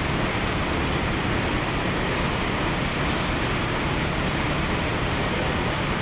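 Vintage sawmill machinery running steadily: engine, belts and saw turning in a continuous mechanical din with a low hum underneath, with no sharp knocks or changes.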